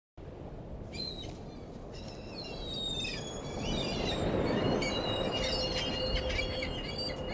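Birds calling: many quick chirps and whistles from about a second in, over a low rushing noise that grows louder, with a faint steady hum in the second half.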